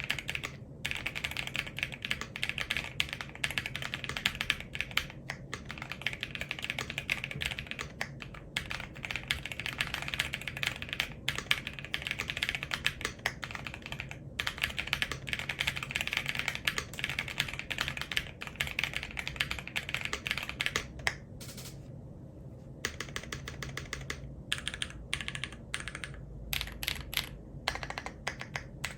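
Fast, continuous typing on an Akko ACR PRO68 mechanical keyboard fitted with NuPhy Night Breeze linear switches and PBT double-shot keycaps: a dense stream of key clacks that thins to a few scattered strokes for a couple of seconds about three-quarters of the way through.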